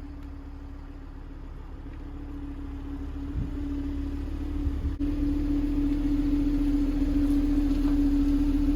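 Audi RS3 8P on the move, heard from inside: a steady drone over low road rumble that grows gradually louder, stepping up abruptly about five seconds in.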